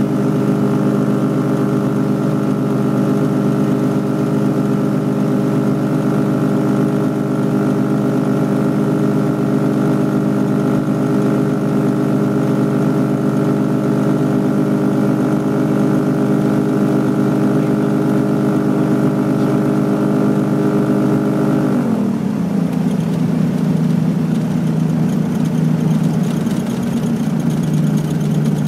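Aliferrari Tucano ultralight's piston engine and propeller, heard from inside the cockpit, running at a steady note on final approach. About three-quarters of the way through the note drops sharply as the throttle comes back, and the engine runs on at a lower steady note as the aircraft rolls on the grass strip.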